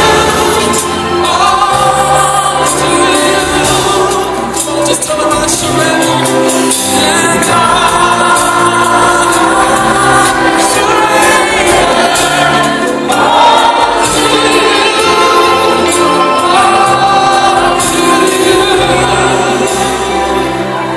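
Live Christian gospel worship music: several singers on microphones singing together over a live band.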